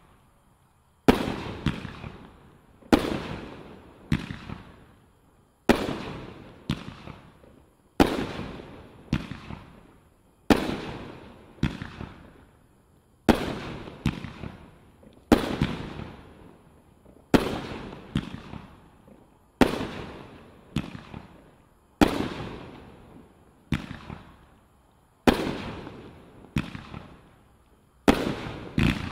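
Brothers Pyrotechnics Daredevil 16-shot 500 g fireworks cake firing: a steady string of sharp bangs, about one every one to two seconds, as its shells launch and burst, each bang trailing off over about a second.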